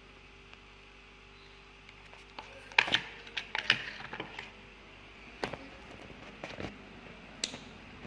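Light clicks and taps of multimeter probes, leads and a small plastic circuit-board part being handled on a stone countertop. A quick cluster comes a little before halfway, and a few scattered clicks follow later.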